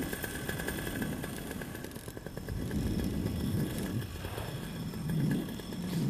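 Paramotor engine running at low throttle, a steady hum, with wind rushing over the microphone in low gusts that swell about three and five seconds in.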